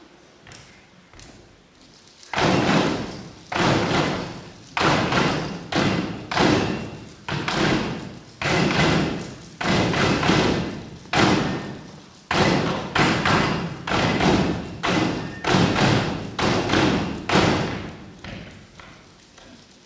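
An ensemble drumming pens and hands on folding tables, with claps, in a rhythmic piece. The playing comes in about two seconds in as a run of phrases roughly a second long, each starting with a loud hit packed with rapid taps and trailing off. It dies down near the end.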